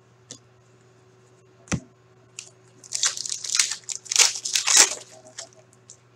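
Foil hockey-card pack torn open and its wrapper crinkled: a cluster of crackly crinkling about three to five seconds in, after a single sharp knock near two seconds in.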